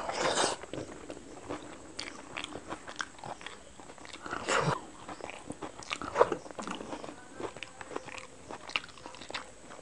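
Close-miked eating by hand: mouthfuls of Maggi masala noodles and egg are bitten and chewed, with wet mouth clicks and smacks. Louder bursts come right at the start and about halfway through.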